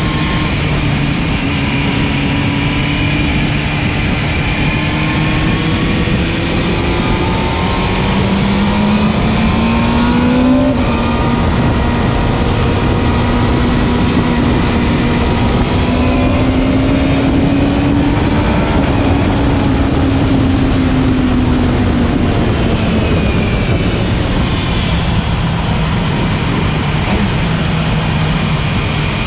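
Motorcycle engine running at speed on a race track under heavy wind rush. Its pitch climbs about ten seconds in, holds, then drops back after about twenty.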